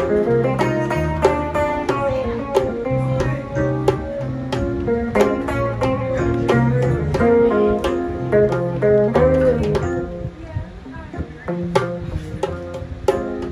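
Small live band playing a slow soul-blues tune: electric guitar and Yamaha keyboard over bass notes, with regular taps from hand drum and tambourine. The music drops softer for a couple of seconds about ten seconds in.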